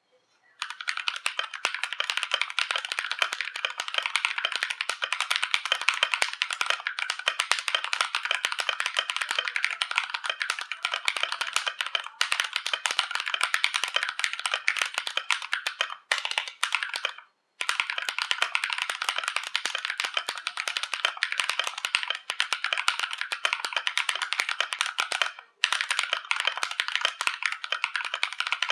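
Fast typing on a GMMK Pro mechanical keyboard with lubed AKKO CS Rose linear switches on an aluminium plate and OEM-profile doubleshot PBT keycaps: a dense, clacky stream of key strokes with a few brief pauses.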